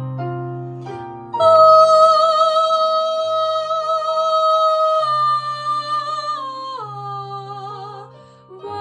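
A girl sings solo over instrumental accompaniment. About a second and a half in she starts a long, loud note with vibrato, holds it for several seconds, then steps down in pitch.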